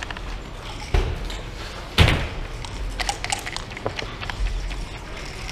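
Play on a wooden backgammon board: two thuds about one and two seconds in, the second louder, then lighter clicks as checkers are moved on the board.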